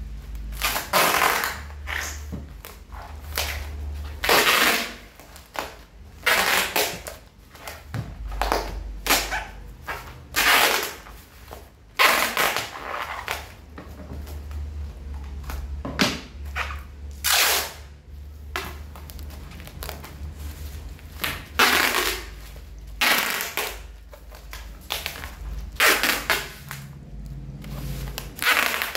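Brown packing tape pulled off its roll in repeated rasping rips, more than a dozen pulls, each lasting up to about a second, as it is wound around a plastic-wrapped parcel.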